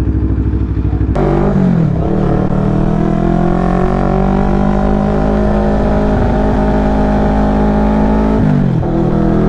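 CFMoto 400NK's parallel-twin engine, fitted with an aftermarket exhaust, running low for about a second. Then a sudden rush of engine and wind noise comes in, and the engine note settles into a steady run. Near the end the note drops briefly and picks up again.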